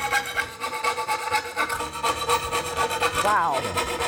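Magic Saw, a hand-held rod saw, being drawn quickly back and forth through a wooden board, about five or six strokes a second.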